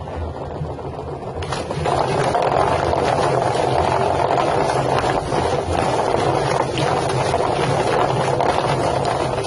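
A drum-type poultry plucker with rubber fingers is running with a duck tumbling inside. The bird is beaten against the spinning fingers in a loud, even rushing clatter that swells about one and a half seconds in and cuts off near the end.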